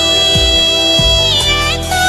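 Bengali romantic song playing: long held melody notes over a beat with two deep, falling bass drum hits.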